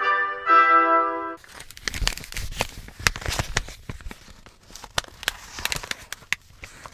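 Brass music that stops about a second and a half in, followed by irregular crinkling and sharp crackling, like material being crumpled.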